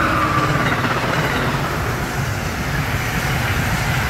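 Amtrak train passing close by at speed: a steady rush of wheels on rail and air, with a high whine that drops in pitch at the start.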